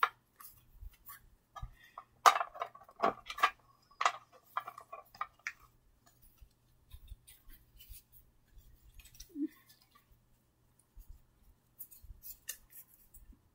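Trading cards and a small box being handled: scattered short rustles and clicks, busiest about two to four seconds in, then sparser.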